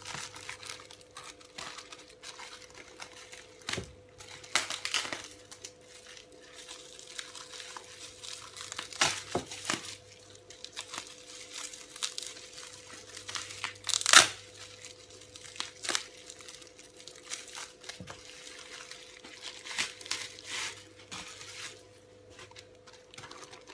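Bubble-wrap packaging crinkling and tearing as it is pulled open and off a new laptop keyboard, in irregular rustles and crackles with the loudest sharp rip about fourteen seconds in.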